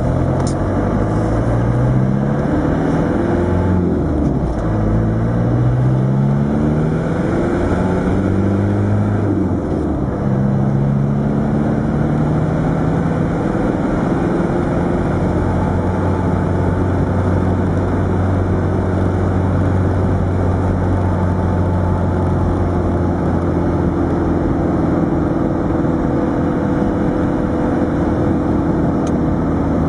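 Land Rover Defender 110's 300Tdi four-cylinder turbodiesel, heard from inside the cab, accelerating up through the gears. The engine note rises and drops back at each shift for the first ten seconds or so, then settles to a steady note at cruising speed.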